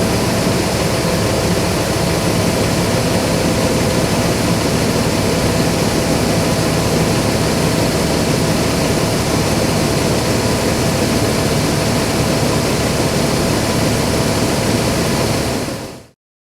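New Holland TX68 combine harvester running steadily under load, a dense, even mechanical noise that cuts off sharply near the end.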